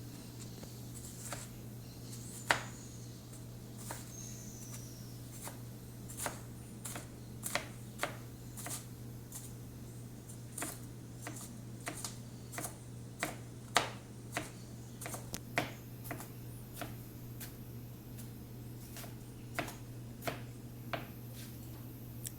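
Knife chopping vegetables into small pieces on a cutting board: irregular sharp taps, one or two a second, a few louder than the rest.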